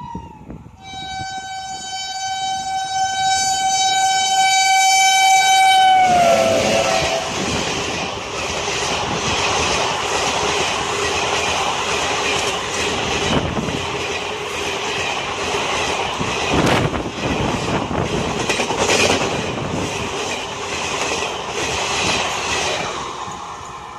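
Indian Railways WAP7 electric locomotive sounding one long, steady horn blast as it approaches; the pitch drops sharply as the locomotive passes. The coaches then rush past at speed with a loud clatter of wheels over the rail joints for about fifteen seconds before the sound fades near the end.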